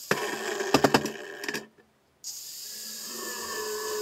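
Angle grinder working steel: a few sharp metallic knocks about a second in, a brief dropout to silence, then the grinder running steadily and biting into the steel of a railroad-rail anvil body near the end.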